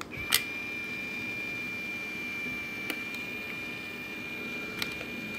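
Fujifilm Instax Mini 9 instant camera whining steadily on one high pitch as its flash charges, with a sharp click near the start and two fainter clicks later.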